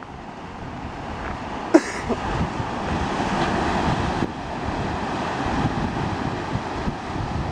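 Wind buffeting the microphone in uneven gusts over the hiss of surf breaking in the cove below, with one brief sharp knock about two seconds in.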